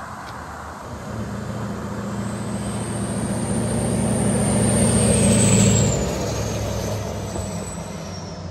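2008 Chevy Kodiak 4500's 6.6 Duramax V8 turbo-diesel driving past: the engine note builds, is loudest just over halfway, then drops away as the truck goes by. A thin high whine falls in pitch as it passes.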